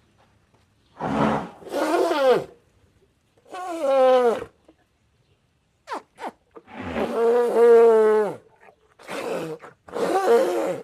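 Reconstructed Uintatherium call sound effect: a series of about six deep, groaning animal calls separated by short silences, each bending in pitch and dropping away at its end, the longest one lasting about two seconds in the second half, with two brief clicks just before it.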